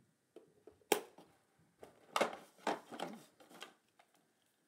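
Hands handling a toy's cardboard box and plastic packaging: a sharp click about a second in, then several short rustling scrapes as the action figure is pulled free.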